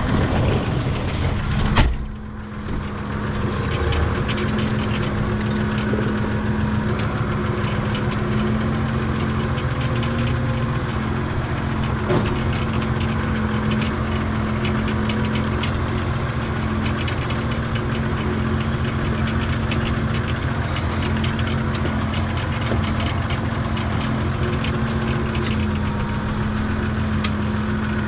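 Renault farm tractor's diesel engine running steadily, heard from inside the cab. About two seconds in the cab door is pulled shut with a single bang, and the engine is briefly quieter before it settles into a steady drone.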